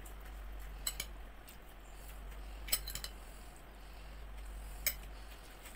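Metal spoon clinking against a ceramic bowl and plate as food is served: a few sharp, brief clinks about a second in, a small cluster near the middle and one more near the end.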